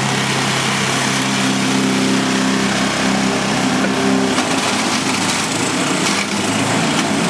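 Small engine of a powered lawn mower running steadily as it is pushed across the grass, its note shifting about four seconds in.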